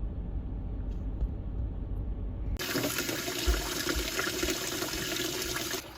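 A low rumble of background noise, then, about two and a half seconds in, an abrupt switch to water running hard from a tap.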